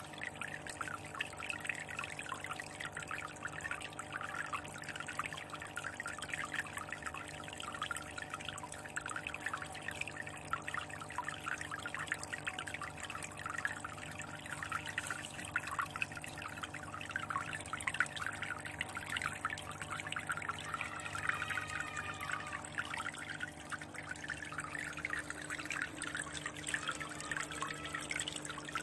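Aquarium water splashing and trickling in a dense, steady patter, with a faint gurgle about two-thirds of the way through and a steady low hum underneath.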